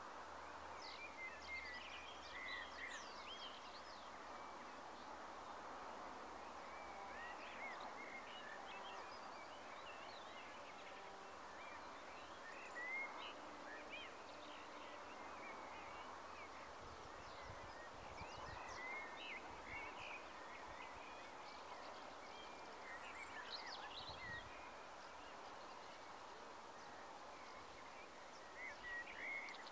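Faint outdoor evening ambience: a steady background hiss, with scattered short bird chirps and calls.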